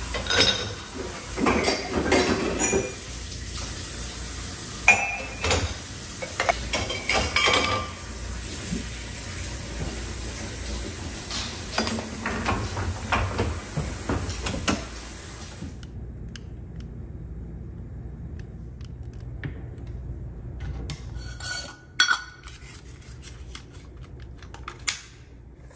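Dishes, glassware and cutlery clinking and clattering as they are handled at a dishwasher rack, over a steady hiss. About sixteen seconds in it cuts off, leaving only a few light clicks and knocks.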